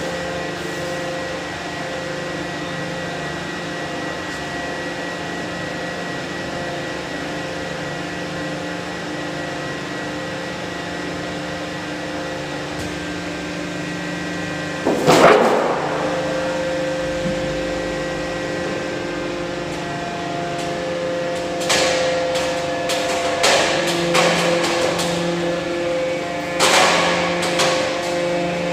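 Steady multi-tone hum of a hydraulic press's power unit. About halfway through comes a loud sudden rattle, and near the end a series of sharp metallic clacks as thin steel sheets are handled at the press.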